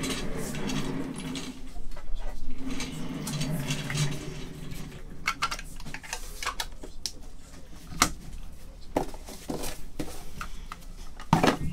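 Trading cards and plastic card holders being handled on a table: a run of light, irregular clicks, taps and rustles.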